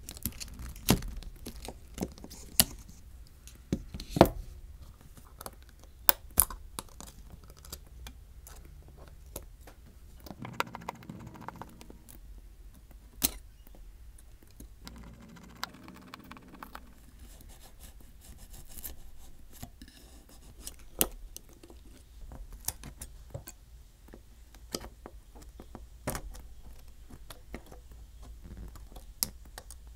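Small hand tools and fingers clicking and tapping irregularly on an iPhone 12's aluminium frame and internal metal brackets during disassembly, with a few louder sharp clicks. Twice there is a longer rasping sound, about ten and fifteen seconds in.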